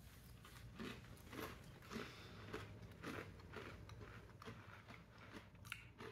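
Faint crunching of a cracker being bitten and chewed, a crunch roughly every half second.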